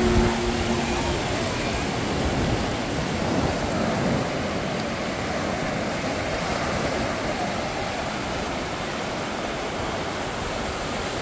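Ocean surf breaking and washing up a sandy beach: a steady, unbroken rush of noise.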